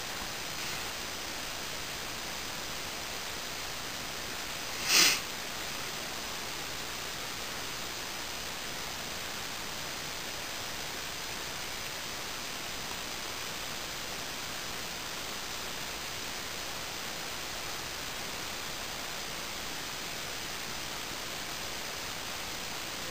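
Steady hiss of background recording noise, with one short loud noise about five seconds in; the snake swallowing its mouse makes no sound of its own that stands out.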